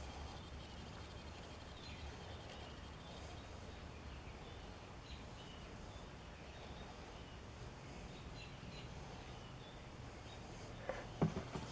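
Faint background ambience with a low hum and faint bird chirps, and a few clicks and knocks near the end.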